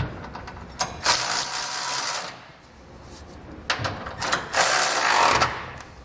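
Cordless ratchet with a 19 mm socket running in two spells of about a second and a half each, snugging down two M12 bolts.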